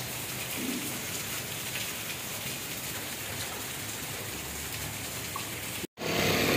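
Steady rain falling on a wet street, an even hiss; it cuts off suddenly near the end.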